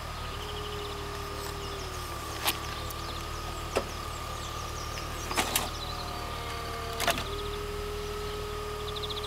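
BMW 330Ci convertible's power soft top opening: a steady motor whine that changes pitch a few times as the mechanism works. Sharp clicks and clunks come about 2.5 s, 4 s, 5.5 s and 7 s in, as the roof unlatches and folds and the tonneau cover lifts.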